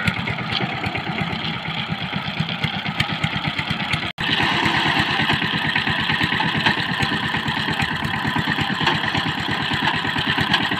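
Power tiller's single-cylinder diesel engine running steadily with an even, rapid firing beat, with a momentary break about four seconds in.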